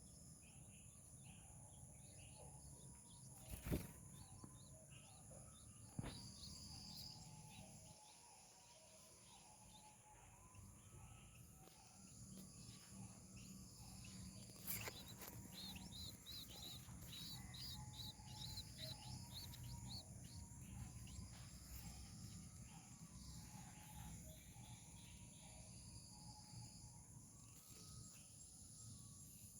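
Faint outdoor nature ambience: a steady high insect drone with birds calling, including a quick run of high chirps about halfway through and repeated lower notes throughout. Three sharp clicks stand out, about four and six seconds in and again just before the run of chirps.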